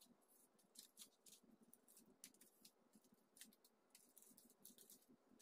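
Near silence with faint, scattered clicks and crinkles of plastic snack packets and small toys being handled on a stone countertop.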